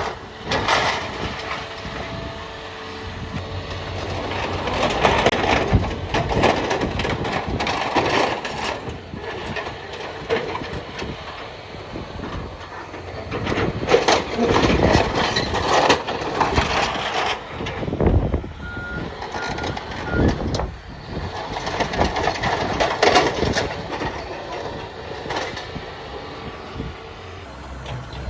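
Heavy machinery at work, likely the excavator and skid steer: engines running and swelling and easing, with knocks and rumbles. A reversing alarm beeps three times about two-thirds of the way in.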